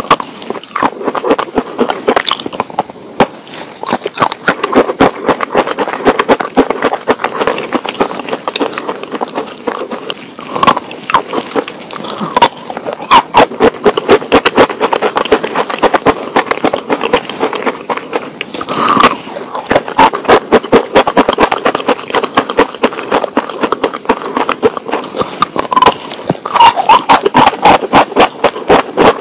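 A stiff sheet of brown paper crinkled and crunched between the hands close to the microphone, a dense, unbroken run of crackles and rustles.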